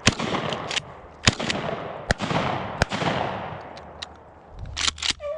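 Gunshots, most likely shotgun fire at a running rabbit: a string of about six sharp cracks, spaced unevenly over a few seconds, each trailing off in an echo.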